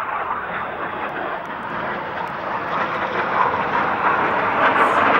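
Two Red Arrows BAE Hawk T1 jets flying past in a crossing manoeuvre. Their single Adour turbofan engines make a steady jet rush that grows louder toward the end.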